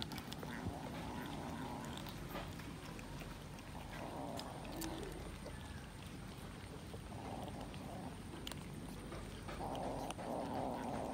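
Cats eating raw minced chicken: wet chewing and smacking clicks, with a low, drawn-out cat call about four times, each lasting about a second, the loudest near the end.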